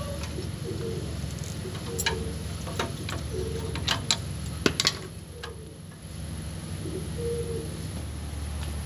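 Scattered sharp metallic clicks and clinks of tools and parts as a brake caliper is worked off, a handful of them, most between two and five seconds in, over a steady low hum.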